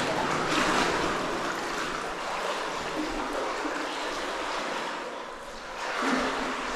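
Water sloshing and splashing as legs wade through a deep, waist-high pool, in uneven surges that ease off briefly near the end and then pick up again.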